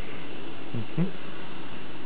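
Two brief, soft vocal sounds, low and bending in pitch, about a second in, over steady background hiss.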